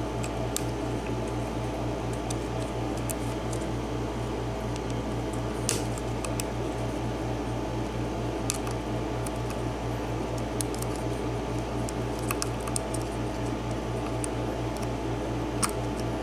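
Light, scattered metallic clicks of a lock pick working the serrated pins of a 7-pin mortise lock cylinder under tension, over a steady low hum.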